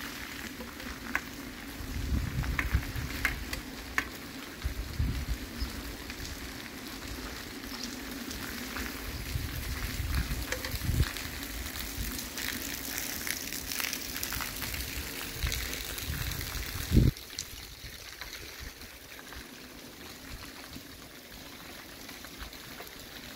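Light drizzle falling on a wet street, a steady crackling hiss, with occasional low rumbles and one sharp low thump about two-thirds of the way through.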